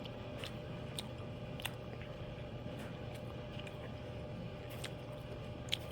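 Quiet chewing of a bite of omelette, with several faint sharp clicks, over a steady low background hum.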